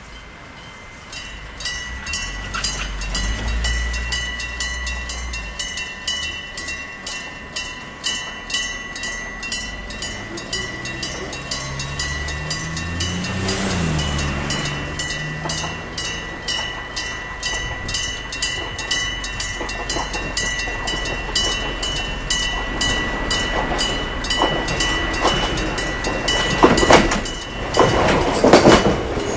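Electric-bell level crossing bell starting about a second in and ringing on in fast, even strokes as the crossing warns of a train. A vehicle hum rises and falls in pitch as it passes in the middle. Near the end a train arrives, its wheels knocking heavily over the rail joints.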